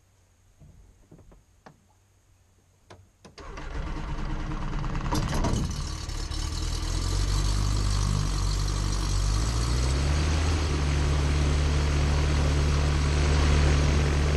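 An ultralight seaplane's propeller engine is started. A few faint clicks are followed by the engine catching about three seconds in, and it runs steadily at idle. Its speed picks up a little about two-thirds of the way in.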